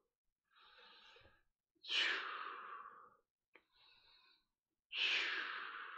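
A man breathing deeply in time with an arm exercise. Two long, forceful exhales, about two and five seconds in, each fade out over a second or so, with quieter inhales between them.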